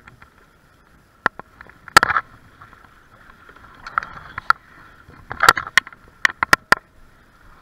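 Irregular sharp knocks and clicks on a boat, about nine in all, the loudest about two seconds in and a quick run between five and seven seconds, over faint water noise and a steady hum.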